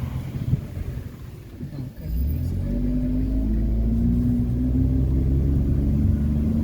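Car engine and road rumble. About two seconds in the engine pulls harder, giving a steady low hum whose pitch creeps slowly upward.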